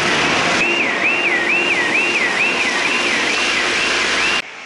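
A car alarm wailing, a high falling sweep repeated about twice a second, over the steady hiss of vehicle tyres on a flooded road. Both cut off abruptly near the end.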